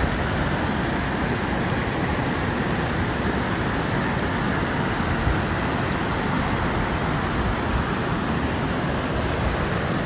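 Mountain river rushing: a steady, unbroken rush of flowing water.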